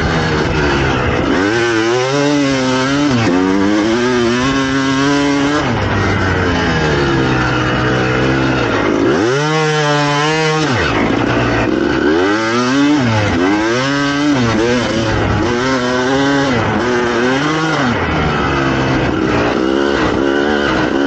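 2007 Suzuki RM250 single-cylinder two-stroke engine with an FMF exhaust, ridden hard. Its pitch climbs and falls again and again as the throttle is twisted and let off, with one long rev up and back down about halfway and a quick run of shorter swells after it.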